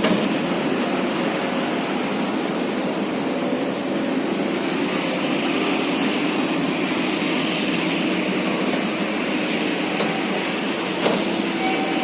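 Heavy machinery's engine running steadily, with a brief knock about eleven seconds in.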